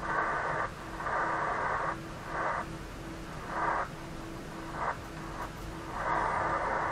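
Tecsun PL-368 shortwave receiver in SSB mode on the 20-metre band giving out band noise and static through its speaker, the hiss cutting out and back in several times as the frequency is tuned, then holding steady near the end. Under it a low tone pulses about twice a second, the local interference (QRM) that plagues reception at this spot.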